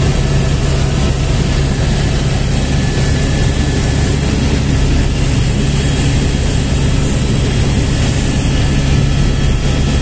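Helicopter in flight heard from inside the cabin: steady engine and rotor noise, a constant low drone under a broad rushing hiss.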